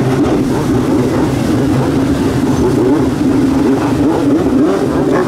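Two-stroke 1200 cc Yamaha engine of a stand-up freestyle jet ski running hard, its note rising and falling with the throttle as the ski carves tight turns through the water.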